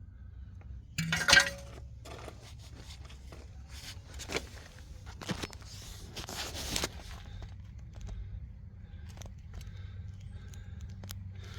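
Metal parts and tools being handled during rear hub removal: one sharp ringing clank about a second in, then scattered clicks, knocks and scraping over a low steady hum.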